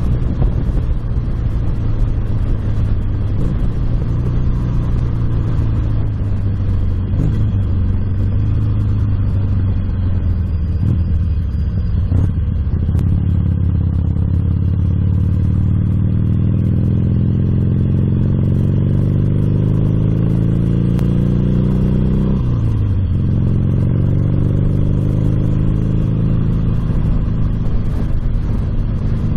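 Motorcycle engine under way, picked up by a bike-mounted action-camera microphone. It runs steadily at first. About twelve seconds in, its pitch climbs steadily for about ten seconds, then drops sharply with a gear change and settles again.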